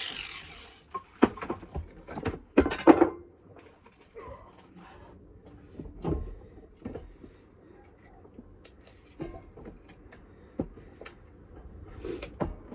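A mini grinder's whine dies away at the very start, followed by a series of sharp knocks and clatters of handling, the loudest about three seconds in.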